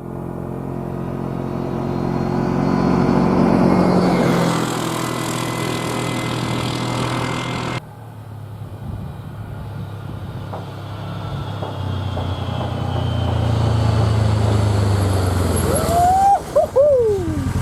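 A utility side-by-side's engine running as it drives, the engine note rising and falling. About eight seconds in, the sound cuts abruptly to another stretch of engine running. Near the end come a few short sliding high-pitched tones.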